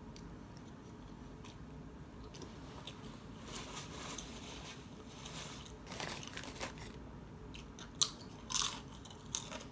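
Close-up eating sounds: chewing, with a paper napkin rustling in the middle, then a chip bitten with a sharp crunch about eight seconds in, followed by a few more crunches.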